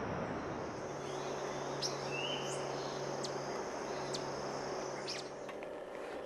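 Tropical forest ambience: a steady high-pitched insect trill with scattered short bird chirps and one brief rising call, over a faint low hum.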